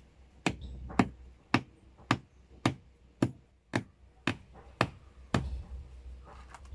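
Hammer striking the top of a wooden stake, driving it into the ground: about ten sharp knocks in a steady rhythm of about two a second, stopping a little over a second before the end.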